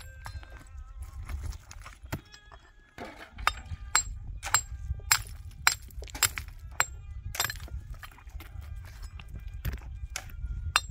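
Metal tools working stone and stony soil: a string of sharp, ringing clinks, about two a second from about three seconds in, as a steel shovel bites into rocky earth and tips it into a metal wheelbarrow, over a steady low rumble.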